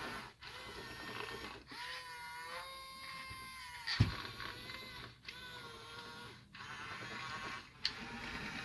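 Small electric motors and plastic-metal gearing of a 1:24-scale RC excavator whirring with a gear whine. The motors start and stop in short runs of one to two seconds as the arm and tracks are driven. Sharp clicks come about halfway through and near the end.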